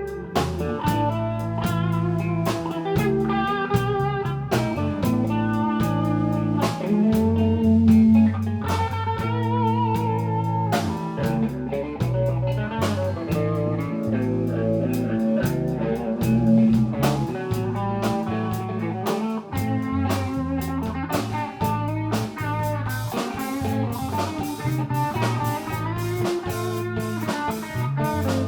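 Instrumental band music: a guitar plays a melodic lead line with vibrato over bass notes and a drum kit, in a blues-rock style.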